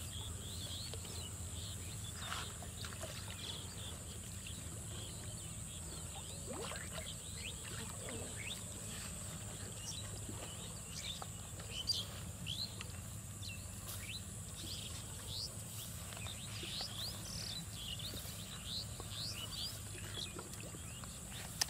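Small birds chirping over and over in quick, short calls, over a steady high hiss and a low rumble, with a brief knock about twelve seconds in.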